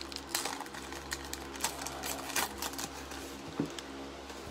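Foil wrapper of a trading-card pack crinkling and tearing as it is opened by hand, in an uneven run of sharp clicks and rustles, with a sharper tap a little after three seconds.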